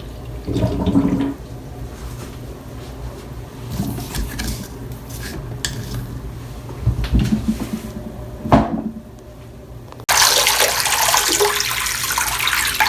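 Clunks and clatter of the portable washing machine's plastic drain hose and plug being handled, then about ten seconds in water suddenly starts gushing out of the gravity drain hose in a steady, fast rush as the tub empties.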